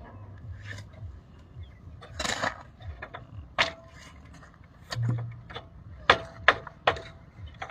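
Construction work with hand tools: scattered sharp taps and knocks with a few short scrapes, irregular rather than rhythmic.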